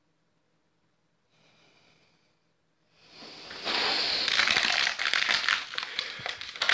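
Water poured from a plastic bottle splashing over a man's head, with loud crackling and crinkling as it runs and the bottle is squeezed. It starts about three seconds in, after a near-silent start.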